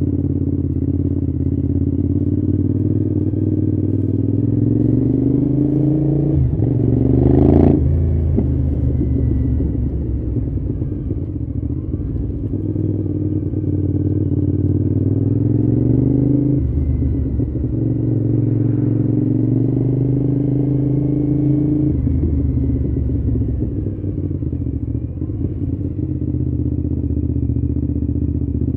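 Cagiva V-Raptor 1000's 996 cc V-twin engine pulling through the gears on the road, its pitch climbing and then dropping back at each of several gear changes. A single sharp crack about seven and a half seconds in.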